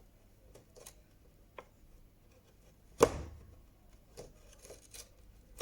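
Wood chisel paring into wood to cut a recess for a brass plate: faint scattered clicks and scrapes, with one sharp crack about three seconds in as wood fibres break.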